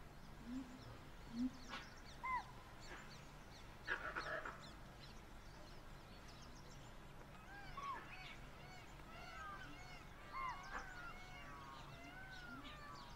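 Wild birds calling: many short chirps and whistles, each rising and falling in pitch, growing busier in the second half, with a few harsher, louder calls in the first few seconds.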